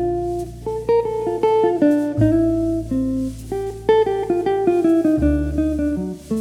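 Gentle background music: an acoustic guitar picking a melody over held bass notes.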